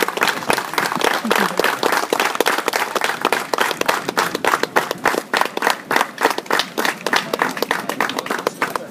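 A small crowd applauding, with individual hand claps standing out distinctly.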